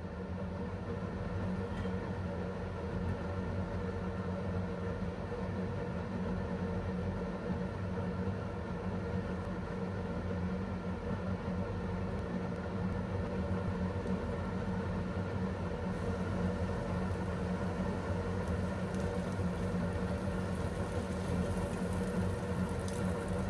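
A steady low mechanical hum: a constant drone with several fixed tones, unchanging throughout.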